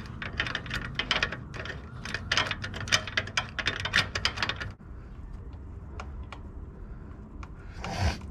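Ratchet wrench clicking in quick, irregular runs as a bolt on an oil filter block adapter is turned. After about four and a half seconds it thins to a few scattered clicks, and a short loud rustle comes near the end.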